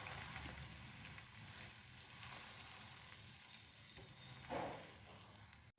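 Buttered sandwich frying on a hot tawa: a soft, steady sizzle that slowly fades, with one brief louder sound about four and a half seconds in, cutting off suddenly just before the end.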